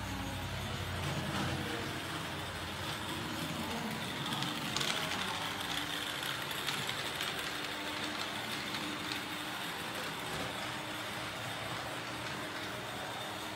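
Toy train running around its track on a train-board layout, a steady running noise with a few faint ticks.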